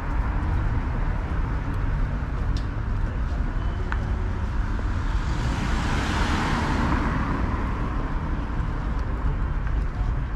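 City street traffic: a car passes close, its tyre and engine noise swelling and then fading about six seconds in, over a steady low rumble.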